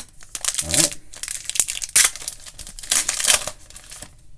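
Foil wrapper of a Donruss Optic football card pack being torn open and crinkled, in several loud bursts of crackling with a short rip about a second in.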